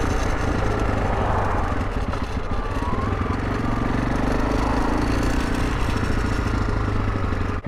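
Honda CRF300 Rally's single-cylinder engine running steadily, an even low note that cuts off abruptly at the end.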